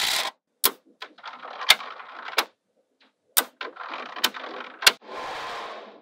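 Small magnetic balls clicking and snapping together as they are handled, with clattering rattles between the sharper clicks.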